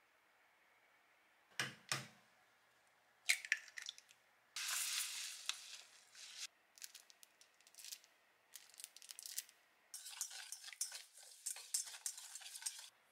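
Baking sounds in stainless steel mixing bowls: two knocks, then sugar poured into the bowl with a soft hiss, then a wire whisk beating egg and sugar against the bowl with rapid clicking and scraping near the end.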